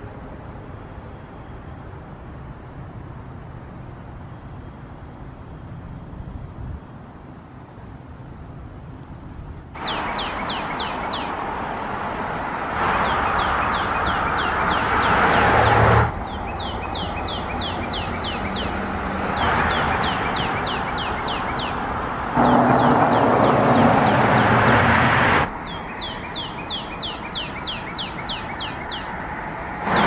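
Northern cardinal singing: after about ten seconds of steady background noise, phrases of rapid downslurred whistles start and repeat several times, with a louder rushing noise under some of them.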